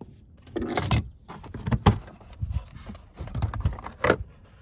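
Handling noise: a run of irregular knocks and clatters, loudest about a second in, two seconds in and near the end.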